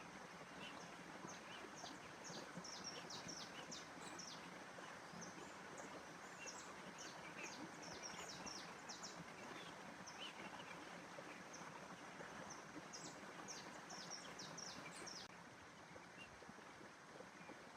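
Faint nature ambience: small birds chirping, many short high notes in quick clusters that stop about three seconds before the end, over a steady soft background rush.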